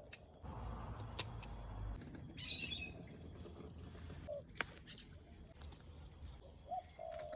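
A short burst of high chirping bird calls about two and a half seconds in, among scattered faint clicks and knocks.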